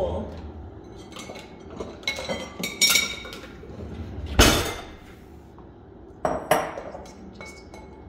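Dishes clinking and knocking together as a bowl is taken out and handled: several sharp knocks with a brief ring, the loudest about four and a half seconds in.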